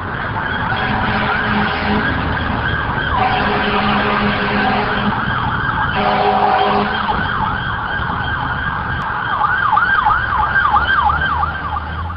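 Emergency vehicle sirens over a low engine rumble. The siren glides up and down, then near the end switches to a fast, repeating yelp.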